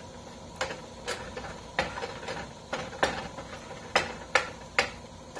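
Kitchen utensil clinking and tapping against cookware, about ten sharp clinks at an uneven pace of roughly two a second, some with a short metallic ring.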